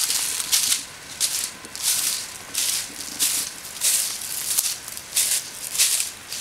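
Footsteps crunching through dry leaf litter at a walking pace, about two steps a second, each step a short rustling crunch.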